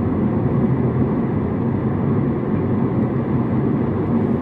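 Steady road and engine noise of a car, heard from inside the moving car's cabin.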